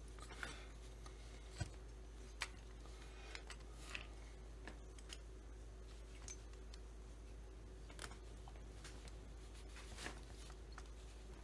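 Faint handling noises of a black rubber hose being worked onto a plastic chainsaw powerhead kit: light rubbing and a few scattered sharp clicks, over a low steady hum.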